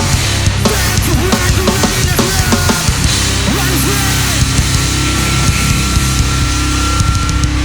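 A live heavy band playing loudly with drums, bass and guitars. About three seconds in, the busy, shifting part gives way to long held low chords with a thin high tone ringing over them until near the end.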